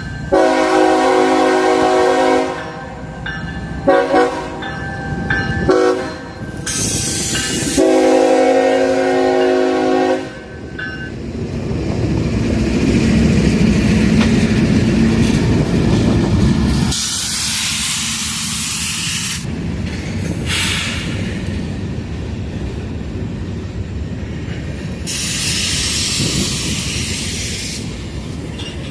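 A CSX freight locomotive's multi-note horn sounds for the grade crossing: a long blast, two short blasts, then a final long blast that ends about ten seconds in. The diesel locomotive then rumbles past, followed by freight cars rolling by with rail clatter and bursts of hiss.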